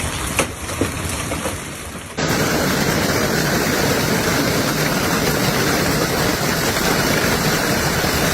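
Heavy storm downpour: a dense, steady rush of pouring rain, which switches abruptly about two seconds in to a louder, even rush.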